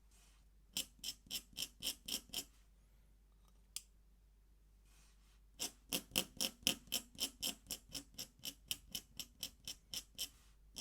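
Pen scratching on paper in quick repeated strokes: a short run of about seven strokes, a pause, then a steady run of about four strokes a second from about halfway.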